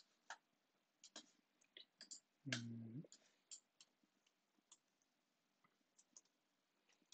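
Faint, scattered clicks of a computer keyboard and mouse, a few to a second, as a path is typed into a command prompt. A short, low hum about two and a half seconds in is the loudest sound.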